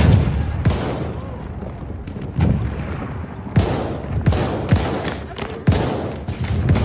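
Battlefield gunfire sound effect: scattered rifle shots at irregular intervals, roughly every half second to second and a half, each with a short echoing tail.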